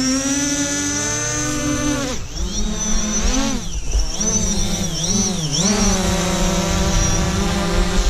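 Quadcopter propellers buzzing in a steady, many-toned hum. From about two seconds in, the pitch dips and rises several times as the motors change speed, then it steadies again.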